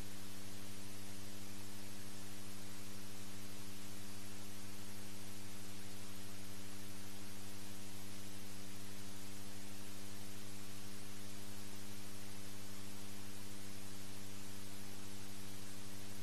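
Steady electrical hum with a constant hiss, no changes throughout.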